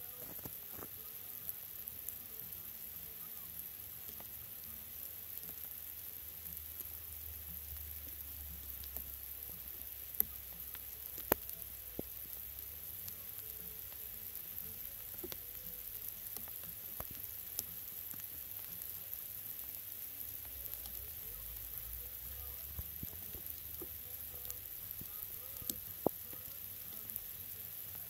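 Fine rain falling on snow and water: a soft steady hiss dotted with small ticks of drops, a few sharper, and a low rumble that swells twice.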